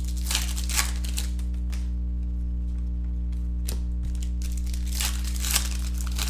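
Foil wrapper of a basketball trading-card pack being torn open and crinkled by hand, in two bouts: at the start and again about five seconds in. A steady low hum runs underneath.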